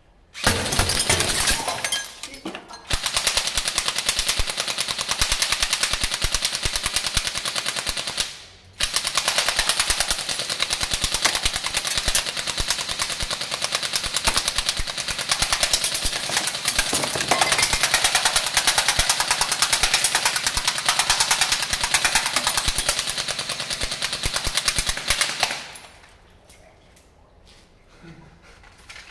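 Airsoft gun firing on full auto: a rapid, continuous stream of shots in three bursts, with short breaks about two and about eight and a half seconds in, then stopping suddenly.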